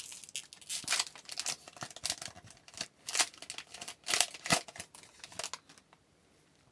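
Trading cards being handled: a quick run of short scrapes, flicks and crinkles as cards slide against each other and against a pack wrapper, stopping about a second before the end.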